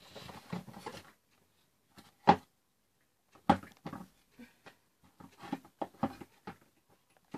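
Toy tea-set cake stand pieces being handled and clicked together during assembly: handling noise at first, two sharp knocks about two and three and a half seconds in, then a run of lighter clicks.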